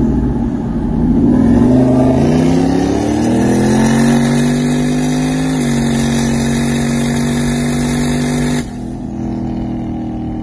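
Car engine at full throttle heard from inside the cabin during a highway pull, its pitch climbing for several seconds, dipping briefly about five and a half seconds in, then holding steady. The engine noise drops sharply about eight and a half seconds in, leaving a quieter, lower note.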